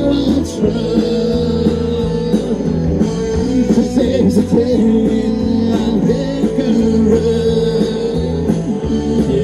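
Live rock-and-roll band playing, with electric guitars, drums and keyboard and a steady drum beat.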